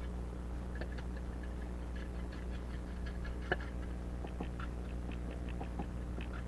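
Scattered small clicks and scrapes of hand tools picking rotted wood out of a concrete sidewalk expansion joint, one sharper click about three and a half seconds in, over a steady low hum.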